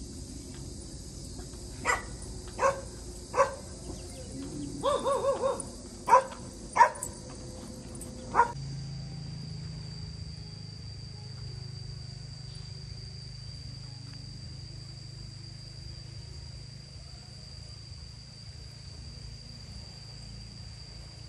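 A dog barking, about seven single barks with a quick run of four yaps about five seconds in, stopping after about eight seconds. After that only a steady low hum remains.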